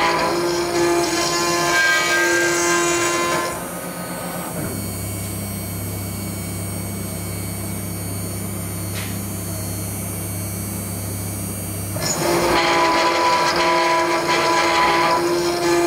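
CNC router spindle milling steel plate with a small endmill: loud cutting noise with several ringing tones. About four seconds in it drops to a steady low hum while the tool is out of the cut, with a single tick near nine seconds. The loud cutting resumes about twelve seconds in.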